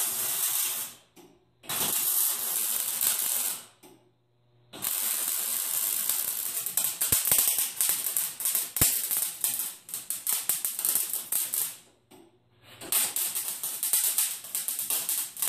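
Electric arc welder crackling in four bursts as a hanging ring is welded onto a bell made from a CO2 cylinder: about a second, about two seconds, a long run of about seven seconds, then about two and a half seconds.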